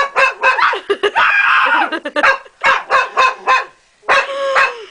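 A dog barking in quick runs of short barks, with a longer drawn-out bark about a second in and another near the end.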